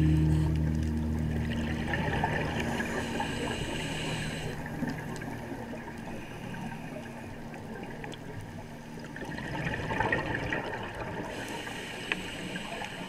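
Underwater sound of a scuba diver breathing through a regulator: two long bursts of hiss and bubbles, one starting about a second and a half in and another near ten seconds, while soft background music fades out.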